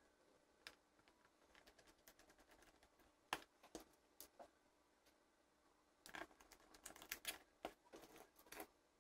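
Faint, irregular light clicks and taps from a small precision screwdriver being handled over a plastic toy case, with a quick run of clicks in the second half.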